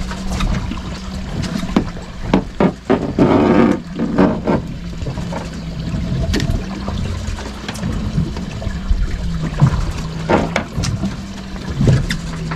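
Steady boat noise on open water: a low engine hum with wind rumbling on the microphone, broken by a few short knocks and handling noises, the loudest patch about three seconds in.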